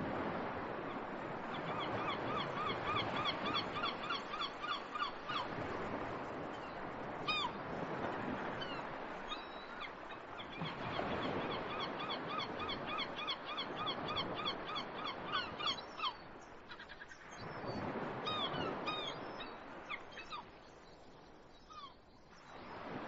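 Birds calling in fast runs of repeated notes, about four a second, in three bursts of a few seconds each, over a steady rushing noise.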